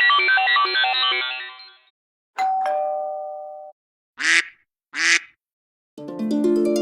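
iPhone ringtone previews in a row: an electronic beeping melody fades out, then a two-note ding-dong doorbell chime, high note then low. Then come two short duck quacks about a second apart, and near the end a plucked harp-like ringtone tune begins.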